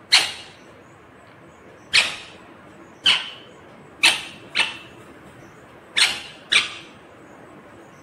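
Indian ringneck parakeet giving seven short, sharp squawks, two of them in quick pairs.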